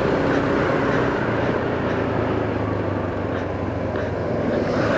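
Motorcycle engine running at a steady cruise, with a constant rush of wind and road noise.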